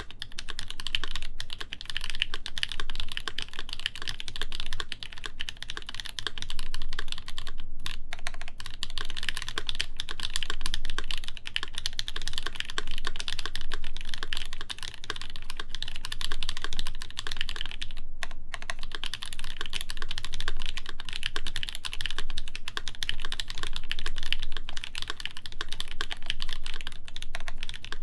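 Continuous fast typing on a RAMA WORKS U80-A mechanical keyboard with lubed, broken-in NK Cream linear switches on a brass plate under GMK doubleshot keycaps, the keys clicking in a dense stream. The typing breaks off for a moment twice, about 8 and 18 seconds in.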